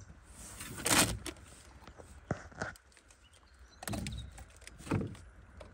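Handling noise while a lure is worked free of a small Murray cod held in lip grips in an aluminium dinghy: a few scattered knocks and scrapes, the loudest about a second in.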